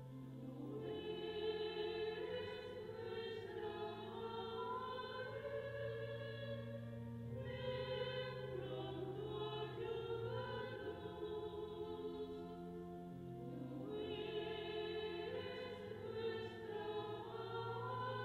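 Choir singing slow music in sustained chords over long held bass notes, the chords changing every few seconds.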